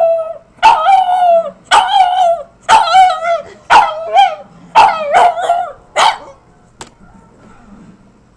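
Small dog giving a run of about eight short, pitch-wavering howl-barks, yodelling 'talking' sounds, which stop about six seconds in.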